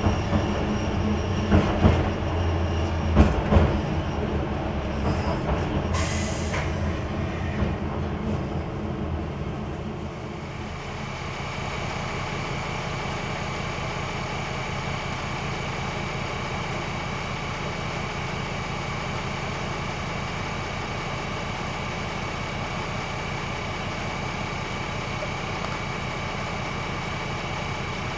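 Single-car diesel railcar braking into a station, its wheels clicking over rail joints and points, with a brief squeal about six seconds in. From about ten seconds on the railcar stands with its diesel engine idling steadily, heard from the driver's cab.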